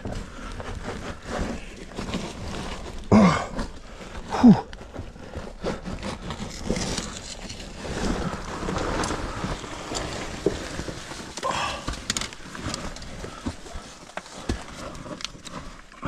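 A caver climbing down a rope through a rocky shaft: clothing and gear scrape and rub against rock, with scattered knocks. Two short, loud vocal grunts fall in pitch about three and four and a half seconds in.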